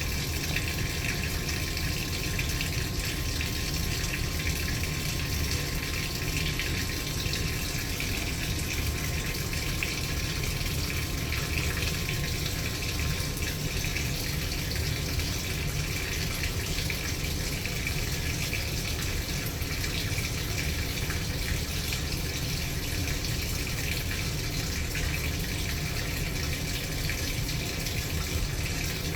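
Maytag Bravos top-load washing machine with water pouring steadily into the tub, a continuous even rush of water.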